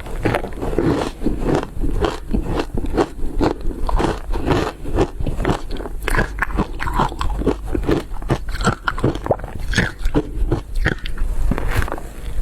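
A person biting and chewing frozen shaved ice, with a continuous run of crisp crunches, a few each second.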